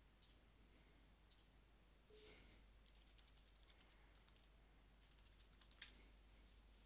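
Faint computer clicks from mouse and keyboard over near silence. The clicks come singly and in a few quick runs, the loudest just before the end.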